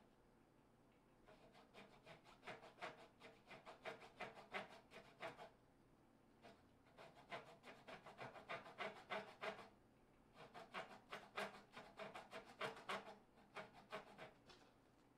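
Brass-backed hand saw cutting through spalted maple in rapid back-and-forth strokes, faint, in three runs with short pauses between, as it trims the top of a dovetail off a table leg.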